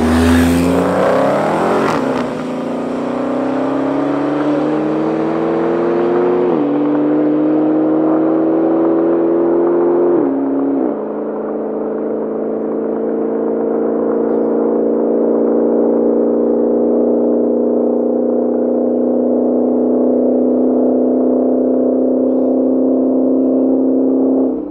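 Dodge Challenger SRT Hellcat's supercharged 6.2-litre Hemi V8 at full throttle, passing close at first, then pulling away with its pitch climbing through the gears. It shifts up about six and ten seconds in, then holds a steady high note.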